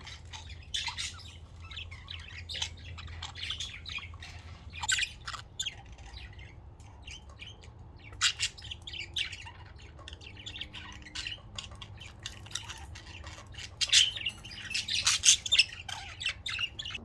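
Several budgerigars chirping and squawking in a run of short, sharp calls, busiest and loudest near the end, over a faint low hum.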